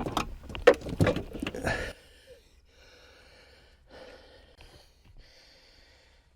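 A quick run of clicks and knocks from car interior parts being handled, which cuts off abruptly about two seconds in, leaving a faint hiss.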